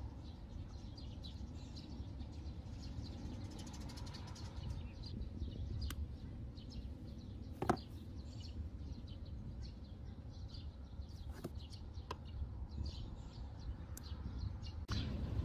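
Quiet outdoor ambience with faint bird chirps over a low rumble. A few light clicks come from pliers crimping wire connectors and being handled, the loudest a single sharp knock about halfway through.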